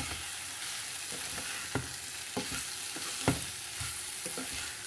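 Chopped mixed vegetables sizzling gently in a nonstick kadai over a low gas flame while a wooden spatula stirs them. The spatula knocks against the pan several times, loudest twice.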